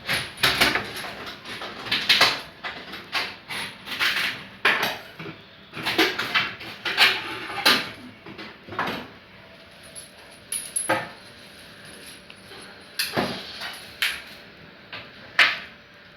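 Irregular knocks, clicks and scrapes of hard parts being handled and fitted during a washing machine repair. They are busy through the first half and thin out to a few isolated knocks later.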